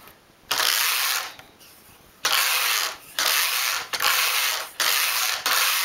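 Carriage of a Neva-2 domestic knitting machine pushed back and forth over the metal needle bed, knitting rows of waste yarn. It comes as about five sliding strokes, each lasting under a second to about a second and a half, with short pauses between them.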